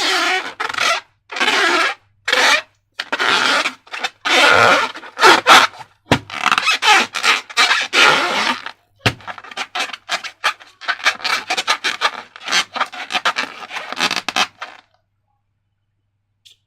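Repeated rubbing and scraping strokes, about one every half second, with a sharp knock about 6 seconds in and another about 9 seconds in. They turn into quicker, crackling rubbing in the second half and stop a couple of seconds before the end.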